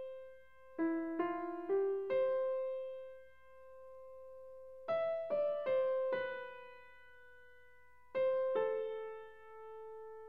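Background piano music: short phrases of three or four notes, each left to ring and fade before the next phrase.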